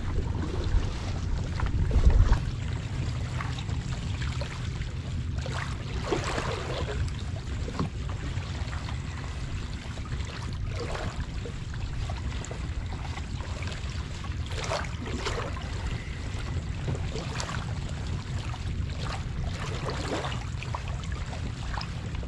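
Water lapping and swishing against the hull of a moving fishing kayak in irregular splashes, over a steady low rumble of wind on the microphone. There is a stronger gust about two seconds in.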